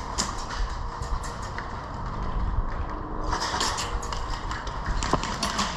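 Footsteps crunching over rough ground, a string of short steps over a low rumble, getting busier about three seconds in.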